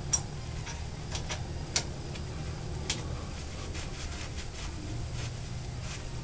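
Scattered light metal clicks and taps as parts of a go-kart's rear axle hub assembly are handled and fitted by hand, over a steady low hum.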